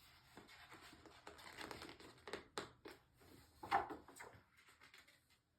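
Faint, scattered taps and soft rustling of a picture book being handled, a finger pressing on the page and the page turning, with a slightly louder tap near the middle.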